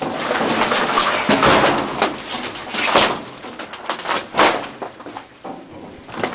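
Gypsum drywall sheets scraping and sliding over the steel side and bed of a dump truck, with several sharp knocks and thuds as the boards hit the metal.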